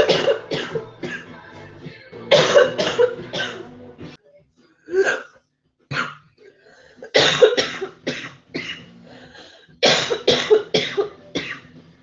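Women coughing hard in repeated fits of three to five quick, harsh coughs, with short gaps between fits. They are coughing on smoke from a glass bong.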